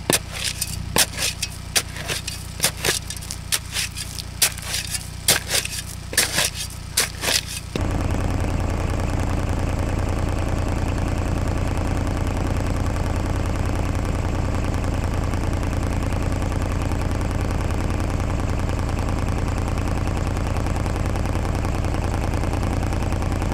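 John Deere 755 compact tractor's diesel engine running, with many sharp knocks and scrapes of steel on rock for the first eight seconds or so as the trench is dug in rocky ground. The engine then comes up suddenly louder and runs steady.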